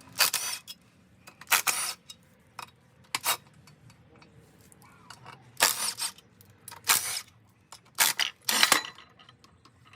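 Short metallic clinks and rattles of hand tools and bolts, five or so brief bursts with quiet between, as the clutch pressure plate's 10 mm bolts are worked loose.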